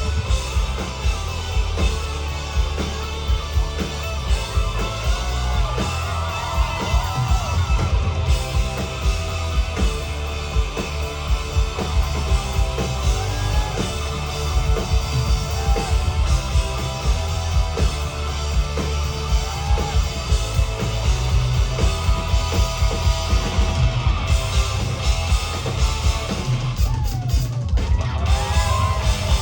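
Live rock band playing an instrumental stretch through a concert PA: drum kit keeping a steady beat under guitar, with a short break near the end.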